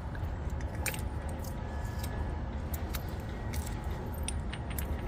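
Scattered light metallic clinks and taps from hand tools and screws as old anodes are unscrewed from a boat, over a steady low rumble.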